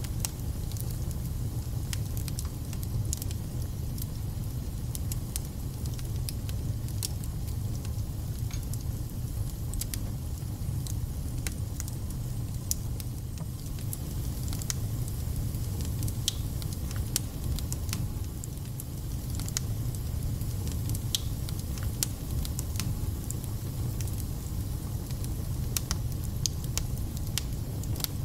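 Wood fire burning in a fireplace: a steady low rumble with frequent sharp crackles and spits from the burning logs.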